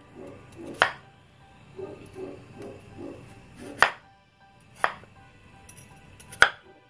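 A cleaver chopping a peeled potato into chunks on a wooden chopping board. There are four sharp knocks of the blade hitting the wood, irregularly spaced a second or more apart.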